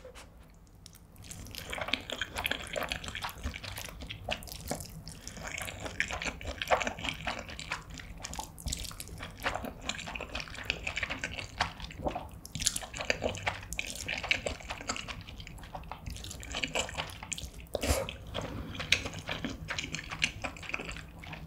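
Close-miked eating sounds of someone slurping and chewing saucy stir-fried instant noodles (cheese stir-fried ramyeon): wet, irregular sucking and smacking noises that start about a second in.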